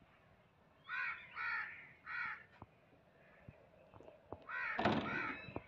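A crow cawing: three short, harsh caws in the first half, then a louder burst of caws near the end, with a few faint clicks in between.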